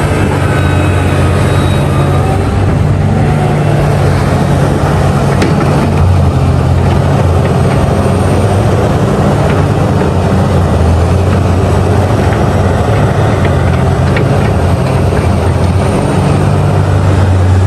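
Heavy diesel engines of a Liebherr 984 mining excavator and CAT 777 haul trucks running, a loud, steady low drone.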